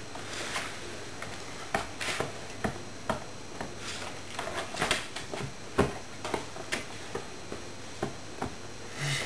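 Irregular light clicks and taps with soft rustling, from a Border Collie puppy shifting its paws on a wooden floor and rubbing against a person while being hugged.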